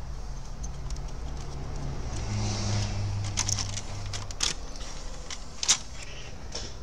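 The spindle motor of a 1988 Magnavox CDB582 CD player hums steadily, shifts to a lower pitch about two seconds in, and stops about four seconds in. Sharp plastic clicks and taps follow as the disc is lifted off the spindle and out of the tray.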